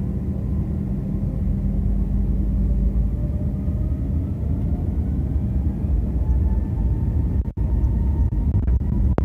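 Airbus A321 jet engines running with a steady low rumble and a faint whine that slowly rises in pitch, the engines building thrust for the take-off run. The sound cuts out briefly about seven and a half seconds in.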